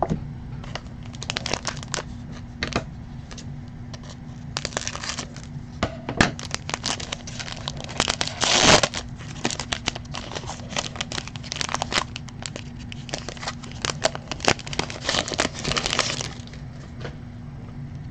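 Foil wrapper of a Panini Prizm baseball card pack crinkling as it is handled and torn open, with the loudest tear about nine seconds in, then the cards sliding out.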